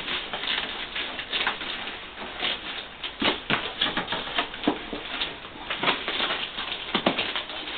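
Cardboard boxes being handled and opened: irregular rustling, scraping and light knocks of cardboard.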